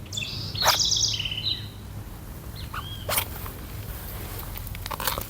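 Birds calling: a quick high trilled call in the first second and a half, then a single curved note about three seconds in. A few sharp clicks or knocks of handling sound in between, over a low steady hum.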